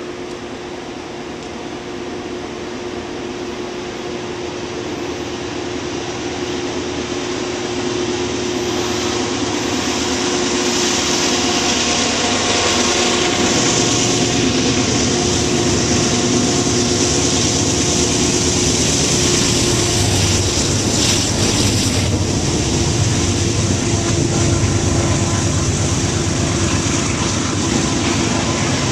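Canadian Pacific freight train's diesel locomotives running as the train approaches, growing louder over the first ten seconds or so and then staying loud. Near the end, covered hopper cars roll past on the rails.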